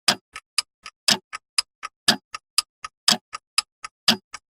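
Stopwatch-style timer ticking, four ticks a second, with every fourth tick louder and fuller so that each second is marked.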